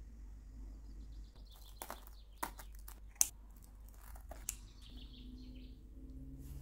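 Kitchen scissors snipping through a baked pizza's crust: a handful of short, crisp cuts and crackles, the sharpest about three seconds in. Faint bird chirps in the background.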